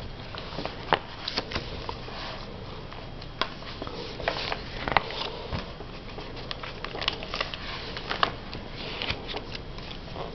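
Paper pages of a glue book, with magazine cut-outs glued to both sides, being handled and turned by hand: rustling with scattered small crackles and taps.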